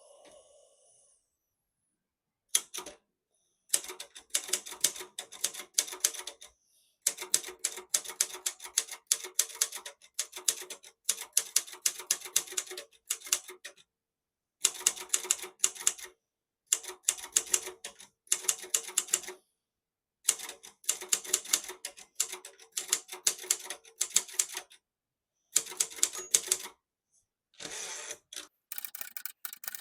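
Silver-Reed Silverette manual portable typewriter being typed on: rapid clacking key strikes in runs of a few seconds, with short pauses between runs.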